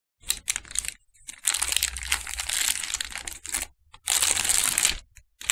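Clear plastic packaging film crinkling and rustling as hands pull it open, in irregular bursts; the longest lasts about two seconds, with another about a second long near the end.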